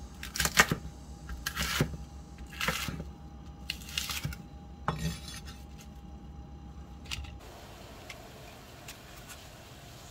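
Kitchen knife cutting a green onion on a wooden cutting board: a handful of separate sharp cuts and knocks of the blade against the board, irregularly spaced. After about seven seconds these give way to a quieter, even hiss of water boiling in a wok.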